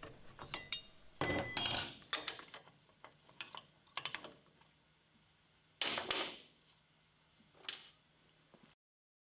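Screwdriver prying rusty brake shoes and their return springs off a Yanmar tractor's cast brake cover: a series of separate metallic clinks and clanks, some ringing briefly, as the springs snap loose and the shoes are lifted off.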